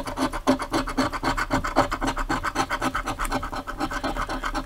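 Scratch-off lottery ticket being scratched off with rapid back-and-forth strokes, several scrapes a second.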